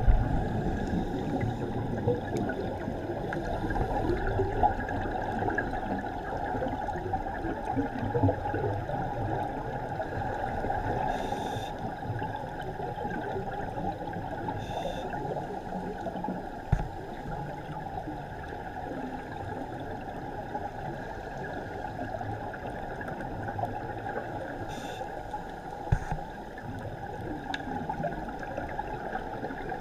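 Underwater recording of scuba divers' exhaled regulator bubbles: a steady bubbling and gurgling heard dully through the water, with two short knocks, the first about halfway through and the second near the end.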